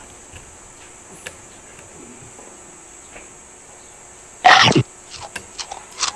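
Forks clicking lightly against plates over a steady high insect drone; about four and a half seconds in comes one loud half-second burst of noise.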